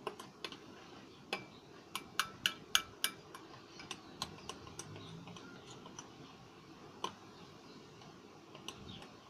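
A stirring utensil clicking against the mixing bowl as a stiff slime mixture is stirred. The clicks are sharp and uneven, with a quick run of louder ones, about four a second, two to three seconds in, and scattered ones after.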